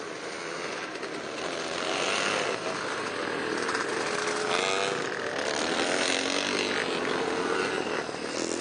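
Vintage motocross motorcycle engines revving as bikes ride past close by, with the engine pitch rising and falling. The sound grows louder about two seconds in.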